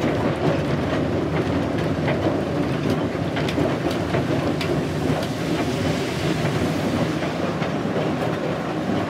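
Class 05 diesel shunter heard from inside its cab while running along the line: a steady engine drone and running rumble, with scattered short clicks through it.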